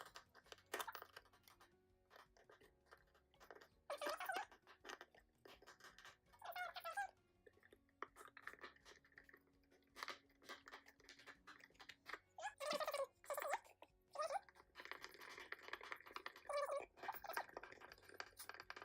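Scattered scraping, creaking and clicking as an electrical outlet with its wires is pushed back into the wall box and its mounting screws are turned in with a hand screwdriver.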